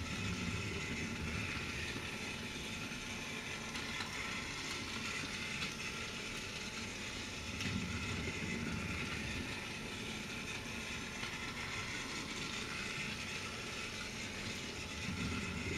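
Battery-powered Trackmaster toy engine's motor and gears whirring steadily as it runs on plastic track, with a low rumble that swells now and then.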